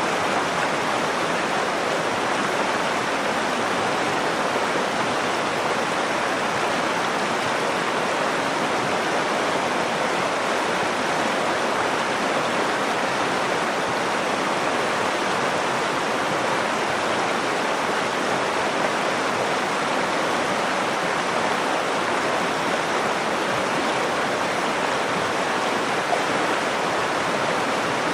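Nakdong River water flowing, a steady even rushing with no change in level.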